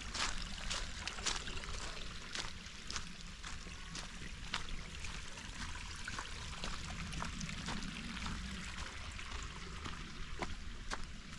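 Footsteps on a dirt and gravel hiking trail, irregular steps about one or two a second, over a steady rushing hiss.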